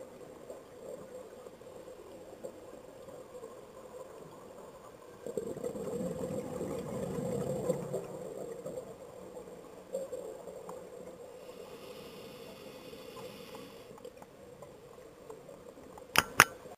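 Underwater sound on a scuba dive: a steady hum with a diver's exhaled regulator bubbles rushing for a few seconds near the middle, then a fainter hiss. Two sharp clicks just before the end are the loudest sounds.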